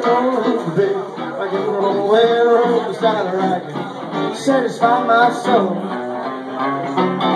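Live rockabilly song played on a solo electric guitar through an amplifier, with long held notes that bend up and down in pitch.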